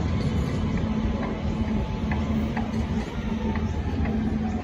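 Light rail tram standing at the platform, its onboard equipment humming steadily, with a light regular ticking about twice a second.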